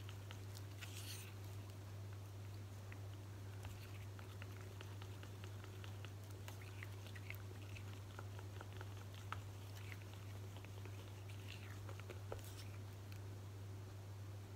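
Wooden stirring stick scraping and ticking against a small cup while thick black acrylic paint is stirred, with faint wet, sticky clicks scattered throughout. A steady low hum runs underneath.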